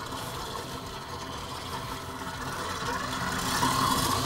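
Electric stand mixer running steadily as it beats butter, cream cheese, powdered sugar and vanilla into buttercream, getting louder near the end.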